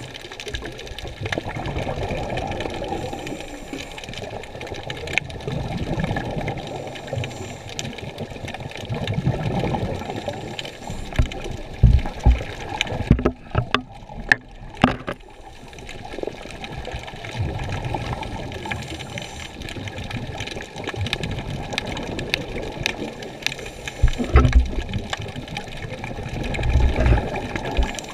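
Water sloshing and churning, muffled, with a few heavy thumps around the middle and again near the end.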